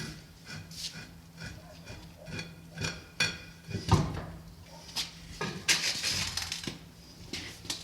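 Scattered metal clinks and clanks of tools and parts being handled, the loudest knock about four seconds in, over a steady low hum.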